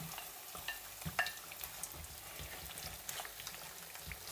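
Sliced potatoes frying in a panful of oil: a steady sizzle full of small crackles and pops. A spatula moves the slices about, with a few soft knocks and one sharper click about a second in.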